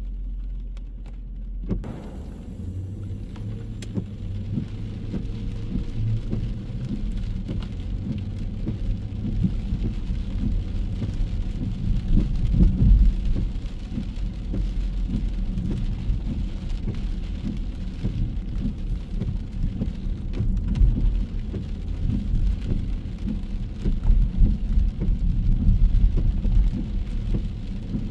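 Rain falling, heard as a faint steady hiss under a louder, uneven low rumble that starts about two seconds in.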